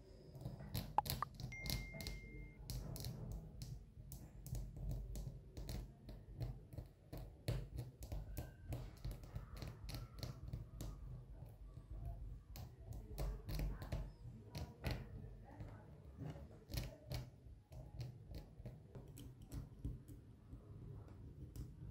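A wooden toothpick scraping and picking grime out of the engraved pattern of a small brass vase: irregular scratchy clicks and ticks, several a second, over a low steady rumble.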